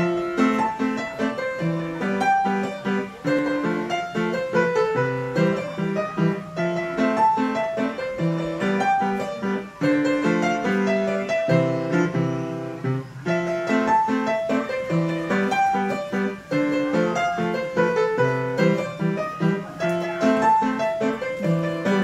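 An upright piano played solo: a continuous, flowing run of notes, a melody over steadily repeated lower notes, without a break.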